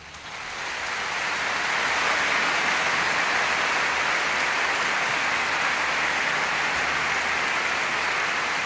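Steady cockpit noise of a Pegazair 100 light aircraft in flight, engine and airflow blending into a dense hiss. It fades in over the first second or two and then holds steady.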